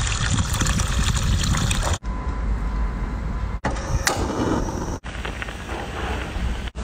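Water running and splashing, as when food is rinsed under a tap, in short takes broken by abrupt cuts every second or two.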